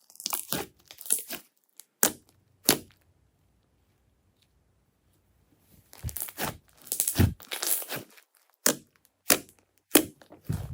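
Glossy slime being squished and stretched by hand, giving bursts of sticky crackling and sharp little pops. There is a near-silent pause from about three seconds to about five and a half seconds in.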